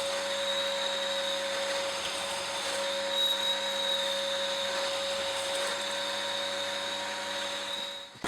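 An electric motor, most like a workshop vacuum or power tool, running at a steady speed with a constant hum and a high whine, then cutting off just before the end.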